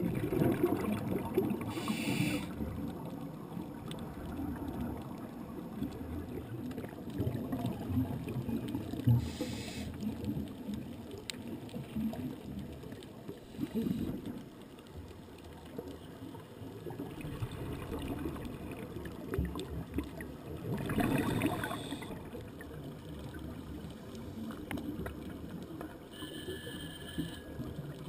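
Underwater scuba-dive ambience: a steady low rumble of water against the camera housing, broken every several seconds by a diver's regulator breathing, with bursts of hiss and bubbling from the breaths, four in all.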